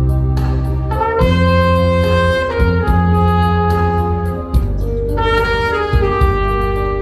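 Saxophone playing a slow trot melody in long held notes, stepping from note to note, over a backing track with bass and drums.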